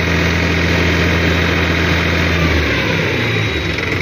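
Farm tractor's diesel engine running while hitched to a loaded trolley in loose soil. About two and a half seconds in, the engine note drops and wavers, then settles again.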